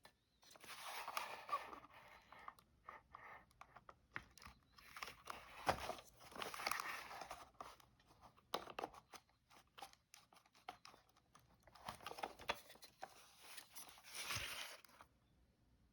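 Rustling and crinkling with many sharp clicks, coming in several bouts separated by short pauses: something, most likely plastic, being handled up close.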